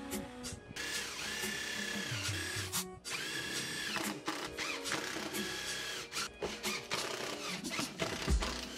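Power drill with a spiral wood auger bit boring holes into plywood, the motor whining up to speed and back down in several short runs as the bit chews through the wood.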